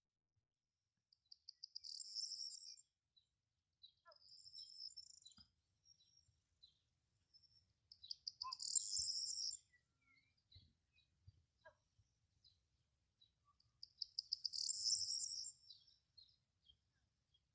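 A songbird singing: four short phrases of quick repeated notes ending in a brighter flourish, a few seconds apart, with faint scattered chirps between.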